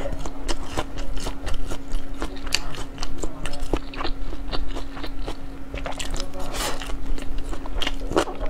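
Close-miked mouth sounds of a person biting and chewing a sushi roll: many quick, irregular wet clicks and smacks. A steady low hum sits underneath.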